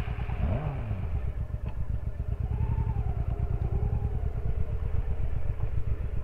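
Honda Shadow VT1100C's V-twin engine, just started, running at idle with a steady low firing beat. A second motorcycle, a Kawasaki ZR-7, is heard moving off ahead.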